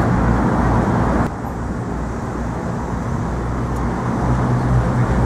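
Steady road traffic noise with a low rumbling hum. The hiss on top of it drops off suddenly a little over a second in.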